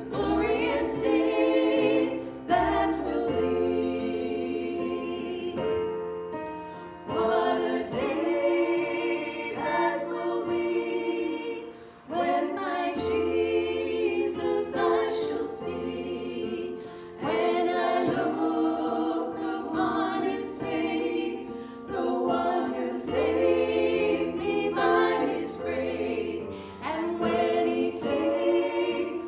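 Group of voices singing a worship song over sustained low accompaniment notes, with short breaks between phrases.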